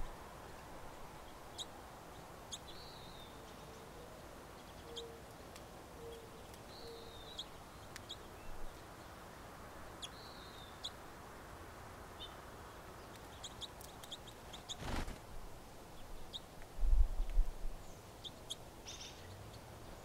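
Small songbirds at a seed feeder: scattered short, high chirps and sharp ticks, with a run of four faint low notes a few seconds in. A sharp crack about three quarters of the way through and a few low thumps soon after are the loudest sounds.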